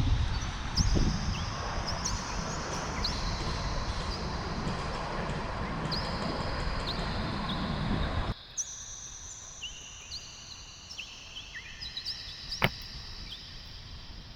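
Wind buffeting the microphone with a low rumble, stopping abruptly about eight seconds in; small birds chirp throughout, and there is one sharp click near the end.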